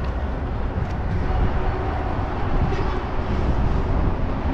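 Steady low rumbling noise, an even outdoor rumble without clear pitch or rhythm.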